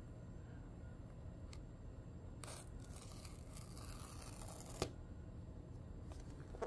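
Paper tear-strip seal on an iPhone box being pulled off by its pull tab: a faint rasping tear lasting about two seconds, ending in a sharp click.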